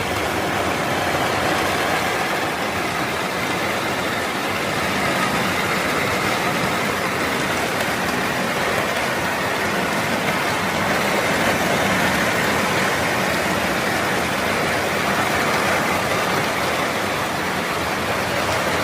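Steady, dense rain falling on a roof, heard from inside through the ceiling.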